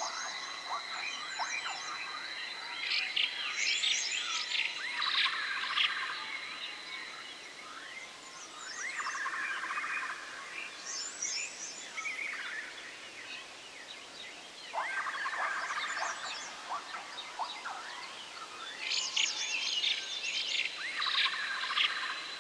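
Forest nature ambience: birds chirping in clusters of quick calls every few seconds, over a steady high-pitched whine.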